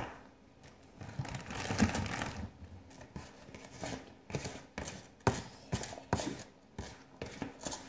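Knife cutting food on a paper plate: a rustle of handling about a second in, then a run of separate sharp taps as the blade comes down through the food onto the plate.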